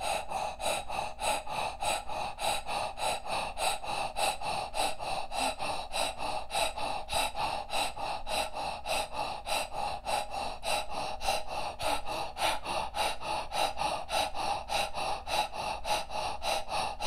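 A woman breathing rapidly in and out through a rounded mouth, each breath pushed and pulled by the diaphragm, in a fast, even rhythm of about three breaths a second: a Kundalini-style breathwork exercise.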